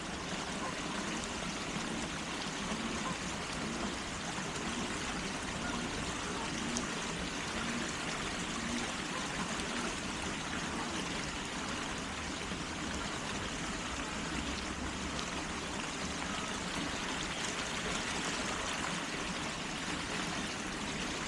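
Steady, unbroken rush of water, with no change in level.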